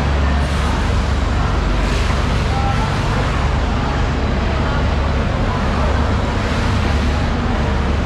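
Loud, steady low rumble with a constant noisy hiss over it.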